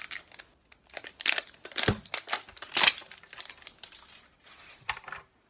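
Crinkling and tearing of the wrapper of a LOL Surprise Confetti Pop ball being peeled off and handled, in irregular crackles that are loudest about a second to three seconds in.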